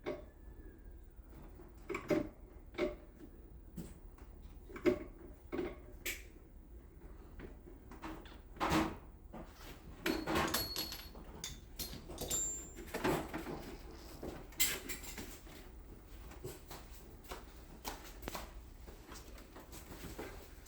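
Scattered knocks, clicks and short scrapes at irregular intervals, with a few longer rustling or scraping noises around the middle.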